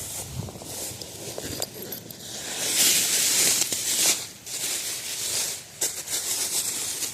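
Plastic bag rustling and crinkling as it is handled while a caught bass is put in it. The rustle is loudest in the middle, with a few sharp clicks.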